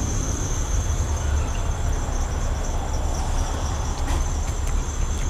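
Crickets trilling steadily in a high pitch, over a steady low rumble.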